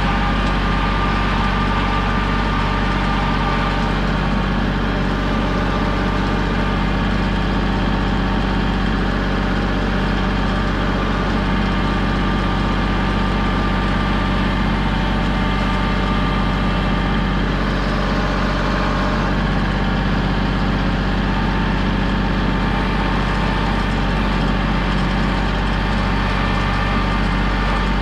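Kubota compact tractor's diesel engine running steadily at an even speed, close up from the driver's seat, as the tractor drives slowly.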